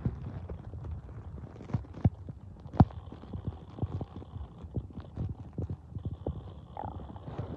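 A person's stomach gurgling: a run of irregular soft pops and clicks over a low rumble, with one sharper pop about three seconds in and a brief higher gurgle near the end.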